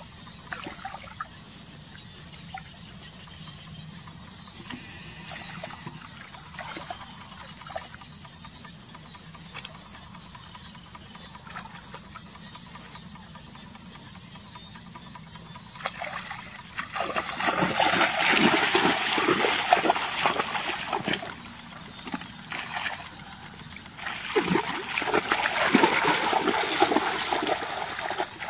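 Water dribbling with small splashes, then two long spells of loud splashing and sloshing in shallow water, the first starting a little past halfway and the second near the end, as a fishing net is worked.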